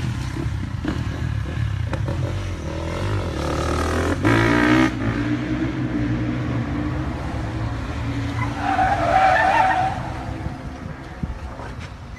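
A car's engine revving hard, its pitch rising and falling, with a loud surge about four seconds in. Tyres squeal loudly for about a second and a half near nine seconds in as the car skids.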